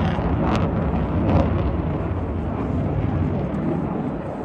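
A pack of NASCAR stock cars' V8 engines running past on the track as a loud, dense rumble that swells to a peak about a second and a half in and then eases off.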